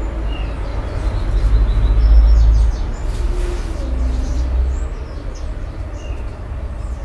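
A deep rumble that swells about a second and a half in and eases off, with a few faint bird chirps over it.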